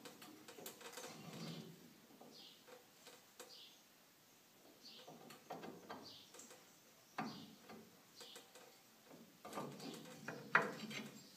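Faint, scattered metal clinks and scrapes of a steel timing collar and a wrench on a swather auger shaft as the shaft is turned into position, with a few sharper clinks in the second half.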